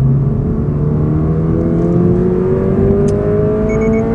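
Toyota GR86's 2.4-litre flat-four engine accelerating, its pitch climbing slowly and steadily under load. Four short high beeps sound near the end.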